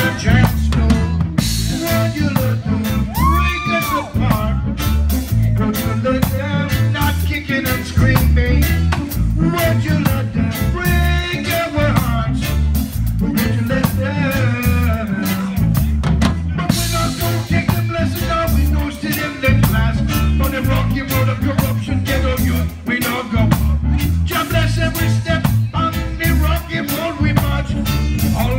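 Reggae band playing live through amplifiers: a steady drum-kit beat, a deep bass line, electric guitar and keyboard.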